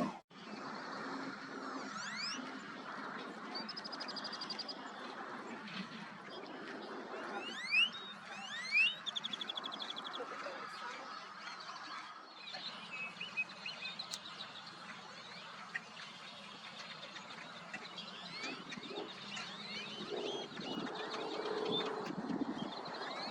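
Wild birds calling: many short rising chirps and a few rapid trills over steady background noise, with two louder chirps close together about eight and nine seconds in.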